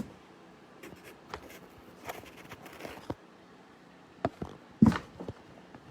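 Objects being handled and set down on a work surface: scattered light taps, clicks and brief rustling, with a louder knock near the end.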